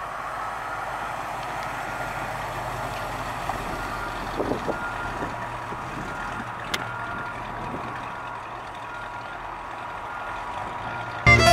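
1968 Chevrolet C10 pickup's 454 V8 running as the truck drives off slowly, with a faint repeating electronic beep in the background.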